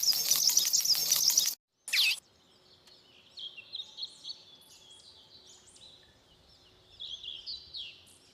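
Small birds chirping: a loud burst of rapid, dense chirping for about a second and a half, a short sweeping sound at about two seconds, then fainter repeated chirps.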